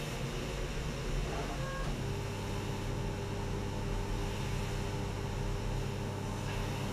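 Steady factory machinery noise in a car-body paint shop: an even hiss, joined about two seconds in by a constant low electric hum.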